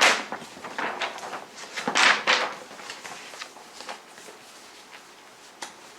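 Paper rustling and crinkling as a large paper map is handled, loudest at the start and again about two seconds in, then fading to light rustles with a couple of small clicks near the end.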